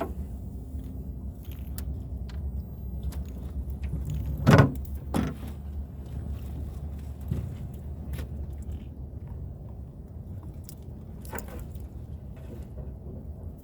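Steady low rumble with scattered clicks and knocks of gear being handled aboard a small fishing boat; a sharp knock about four and a half seconds in is the loudest, with a smaller one about half a second later.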